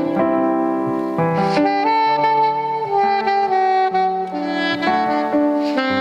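Instrumental music: a saxophone playing a slow melody of long held notes over a backing of sustained chords.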